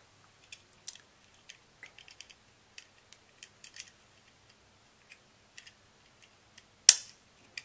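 Small plastic clicks and taps from a lancet being fitted into a lancing device, then one sharp plastic snap about seven seconds in as the lancet is pushed home.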